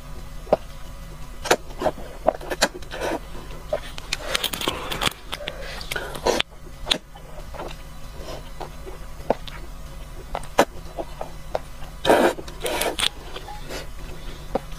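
Close-miked slurping and wet chewing of thin noodles in sesame-paste sauce, with many sharp mouth smacks and clicks; longer slurps come about four seconds in and again about twelve seconds in.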